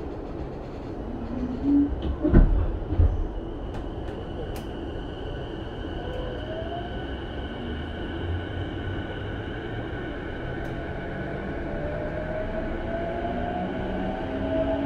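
Cabin of a JR East E233-1000 series electric train: a steady hum while the train stands, with a few heavy thumps about two seconds in. Near the end, the Mitsubishi IGBT-VVVF traction inverter starts a rising whine as the train pulls away.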